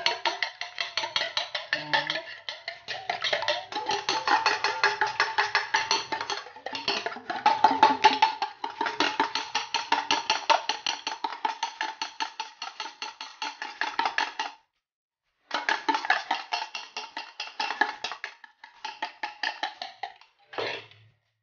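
Fork beating a raw egg in a stainless steel bowl: rapid, regular clinking of metal on metal, several strokes a second, with the bowl ringing. It pauses briefly in the middle and stops shortly before the end.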